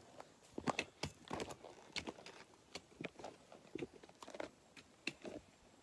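Close, irregular crunching and scuffing of footsteps on gravelly, leaf-littered ground, a couple of sharp crunches a second.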